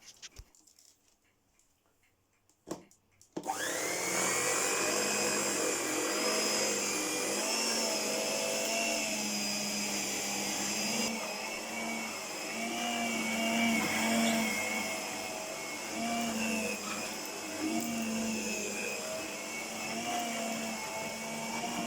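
1978 Princess electric carpet sweeper's small 100-watt motor switched on: a click, then just under a second later the motor spins up with a rising whine and runs steadily, its pitch wavering slightly.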